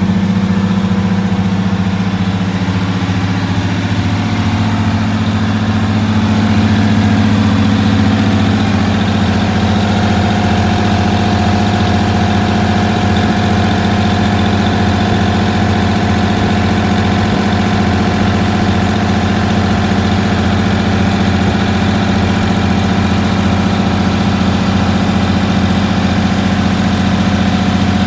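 GMC bus's diesel engine idling steadily, heard close up at the open engine bay; its speed rises a little a few seconds in and then holds even.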